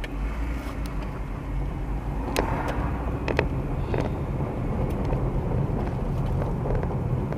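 Car running and pulling away from a stop, heard from inside the cabin, with the engine and road noise slowly getting louder as it picks up speed. A few scattered light clicks sound over it.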